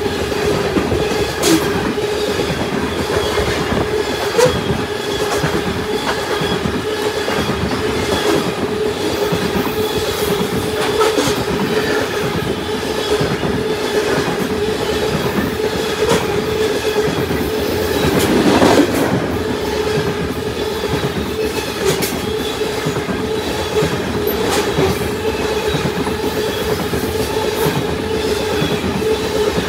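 Freight coal cars of a BNSF coal train rolling past close by: a steady rumble of steel wheels on rail with scattered clicks over the joints and a steady whining tone from the wheels. The sound swells briefly about two-thirds of the way through.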